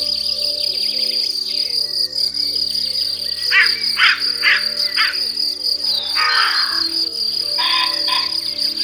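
Steady high insect trill over sustained low tones, with a few short rough calls about halfway through and near the end.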